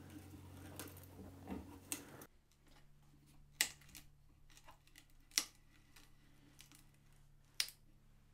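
Allen key winding a threaded insert into wood: faint scraping, then three sharp metallic clicks about two seconds apart.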